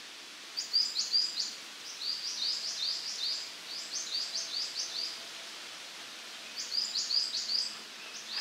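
A small songbird singing quick runs of high, falling notes, about four short phrases with brief pauses between them.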